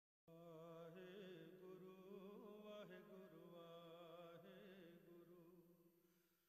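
Faint devotional chanting, a wavering sung voice over a steady held drone, fading out near the end.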